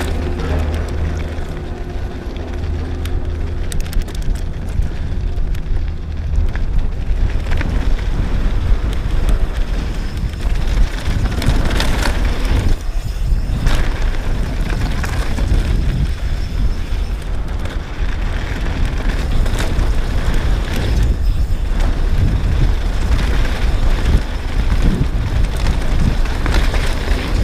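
Downhill mountain bike ridden fast down a dirt flow trail, heard from a camera mounted on the rider: a heavy rumble of wind buffeting and tyres on the trail, with frequent clicks and rattles from the chain and frame over bumps.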